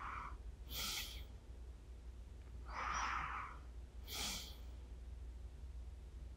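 Slow, soft breathing of a person dozing close to a binaural microphone: a drawn breath about a second in, a longer breath out at three seconds and another breath in at four. It is the quiet, even rhythm of someone drifting back to sleep.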